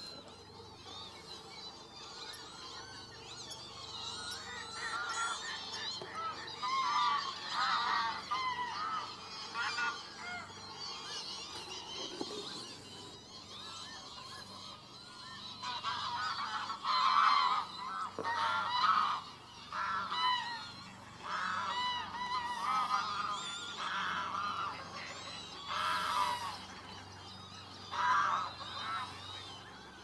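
A flock of greylag geese honking, many calls overlapping. The calling swells about halfway through and comes in loud bursts until near the end.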